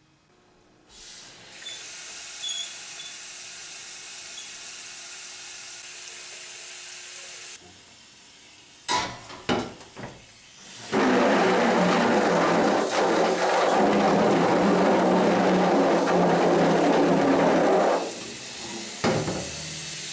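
Water spray from a hand-held spray gun hitting an exposed screen-printing screen in a washout booth, washing out the emulsion stencil. A steady hiss runs for several seconds and a few knocks come about nine seconds in. Then a much louder, fuller spray of water on the mesh lasts about seven seconds before easing back to a lighter hiss.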